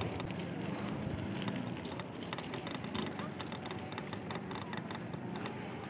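Bicycle rolling along a paved road, picked up by a phone mounted on the bike: a steady rushing noise with frequent small, irregular clicks and rattles.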